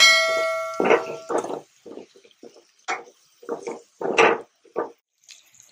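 Steel ladle striking a metal kadai, ringing for about a second, then scraping and knocking against the pan in short irregular strokes as chopped tomatoes are stirred into the masala.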